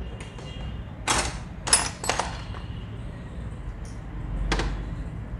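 A few short scrapes and knocks as small sewing machine parts are picked up and handled, about a second in, near the middle and once more near the end.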